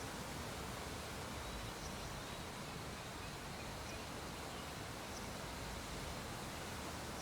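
Steady background hiss of room tone, with a few faint, brief high-pitched blips.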